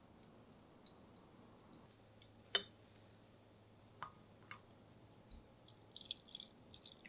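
A single sharp knock about two and a half seconds in, then a wooden stirrer tapping twice against a glass coffee server with a short ring. Near the end, a quick run of small splashes and trickles as brewed coffee is poured from the server into a glass.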